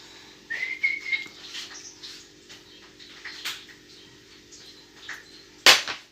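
A short whistle-like chirp, rising and then held briefly, about half a second in, over a steady low hum and light tapping and handling noises, with one sharp click near the end.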